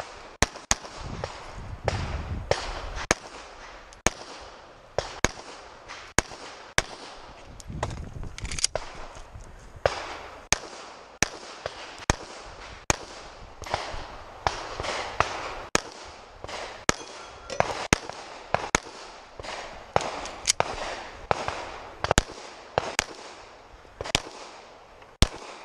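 A Glock pistol firing a long string of shots, roughly one to two a second with short pauses between groups, each a sharp crack.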